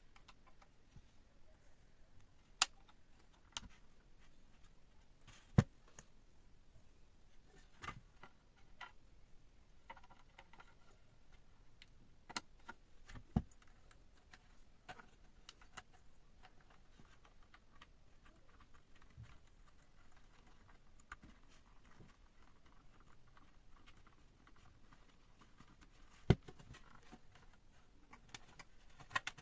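Scattered sharp clicks and light knocks, a few seconds apart, over a quiet room, with fainter ticks between them.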